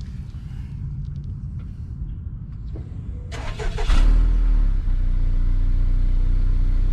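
Honda Accord's turbocharged 2.0-litre four-cylinder starting up about halfway through, with a short burst of cranking noise, then settling into a steady, loud, low idle through a catless downpipe.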